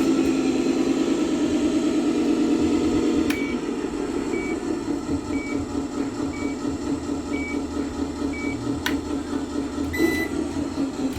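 RC truck sound card playing a truck engine sound through a small speaker, running higher for about three seconds, then dropping to a lower idle after a click. Short electronic beeps come about once a second, six in a row, then stop after a second click; another beep sounds near the end.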